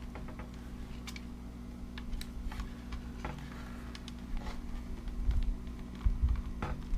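Scattered small clicks and taps of hands working the plastic body and circuit board of a 3DR Solo drone, over a steady low hum, with a few duller bumps near the end.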